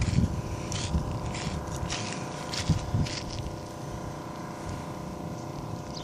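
Irregular crunching and rustling, like footsteps on dry sandy ground and brush, mostly in the first three seconds. A steady low mechanical hum runs underneath.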